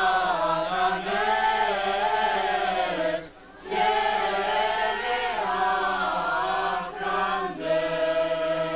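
A choir singing in long phrases, with a short pause about three seconds in and a held note near the end.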